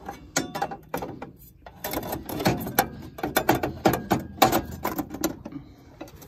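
Thin sheet-metal cover panel inside a Generac standby generator's enclosure being worked back into place by hand: a quick, irregular run of metal clanks, rattles and scrapes that stops about a second before the end.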